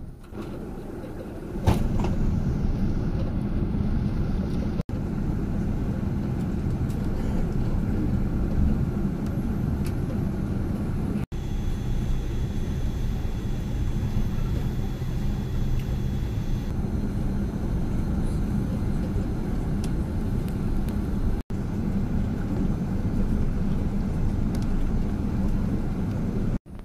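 Steady low rumble of an Airbus A380 heard from inside the cabin: jet engine and airflow noise with no clear rise in pitch. It steps up in loudness about two seconds in and is broken by a few abrupt cuts.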